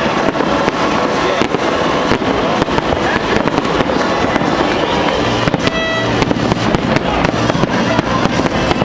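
Aerial fireworks going off in a dense barrage: rapid bangs and crackling throughout. A brief held pitched tone sounds about six seconds in.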